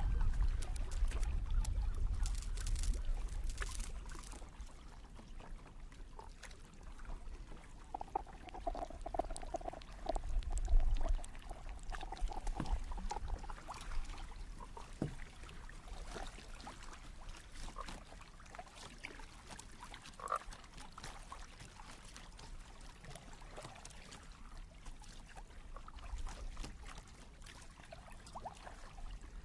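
Granular-synthesis data sonification built from animal recordings, giving grainy croaking, frog-like sounds. The croaking is clearest about a third of the way in, over a low rumble from water and the kayak's movement.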